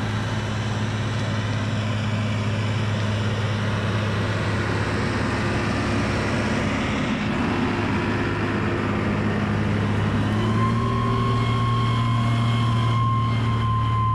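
Tata fire truck's engine running steadily with a low hum. About ten seconds in it grows a little louder and a steady high whine joins in.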